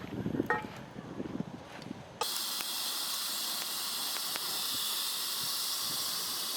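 Light clatter, then about two seconds in a steady hiss from the camp cooking setup starts abruptly and holds.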